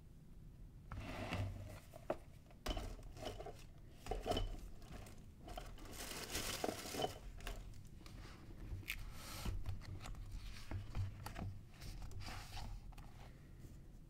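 Book being handled and its pages turned: irregular papery rustles and swishes with small taps and knocks, the longest and loudest rustle about six seconds in.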